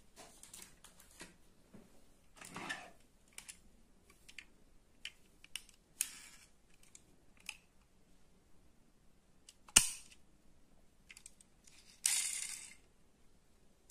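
A small die-cast toy car being handled: scattered light clicks, taps and rustles of fingers on the model. One sharp click about ten seconds in is the loudest, and a short scraping rustle follows about two seconds later.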